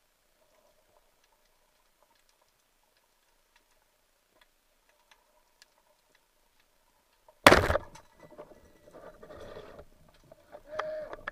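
Faint scattered clicking underwater, then about seven and a half seconds in a single loud sharp crack as a band-powered speargun fires. Irregular scraping and knocking noises follow.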